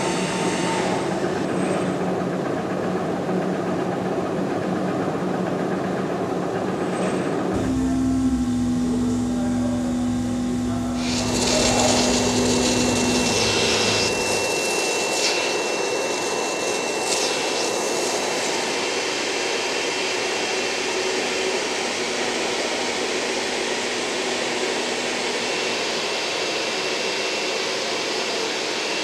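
Steady industrial machine hum that changes to a lower, pulsing hum partway through. From about a third of the way in, an industrial vacuum sucks loose powder out of a 3D printer's build box: a steady rushing noise with a thin high whine, and a few scrapes of the nozzle against the box.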